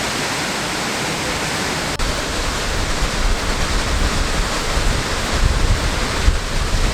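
Waterfall rushing: a steady, loud wash of falling water. About two seconds in, after a sudden break, a deeper low rumble joins it.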